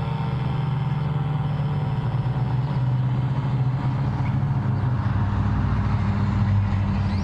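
An ACA Cyclone tornado siren's steady pitched tone fades out in the first second or so, leaving a steady low engine-like rumble of road vehicles.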